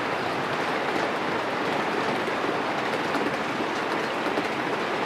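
HO scale model passenger train rolling along its track: a steady rushing hiss of wheels on rail with faint rapid clicks.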